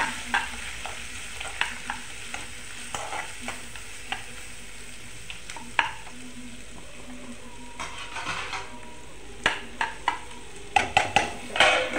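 Chopped onion, green chillies and mint sizzling in oil in a non-stick frying pan while a steel spoon stirs them. Scattered clicks of the spoon against the pan punctuate the steady hiss, coming more often near the end.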